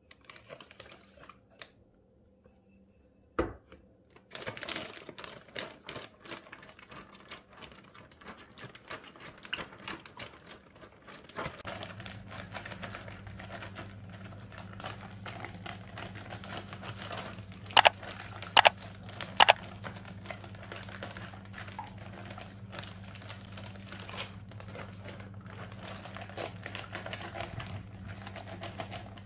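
Plastic zip-lock freezer bag crinkling and rustling as dough is squeezed and kneaded inside it by hand, with one sharp click before the rustling starts and three loud snaps a little past the middle. A steady low hum joins underneath about a third of the way in.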